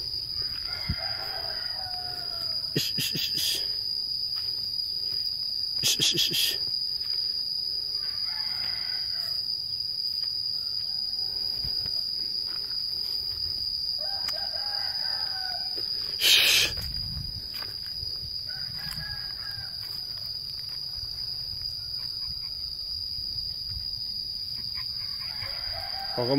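A steady high insect drone runs throughout, while a rooster crows several times. A few brief bumps are heard, the loudest just past the middle.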